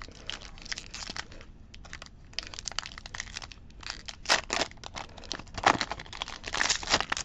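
Foil wrapper of a Pokémon booster pack crinkling and tearing as it is opened by hand, in irregular crinkles that are loudest a little after four seconds in and again near the end.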